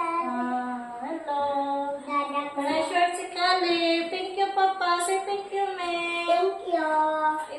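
A song sung in a child's or woman's high voice, with long held notes and a steady melody.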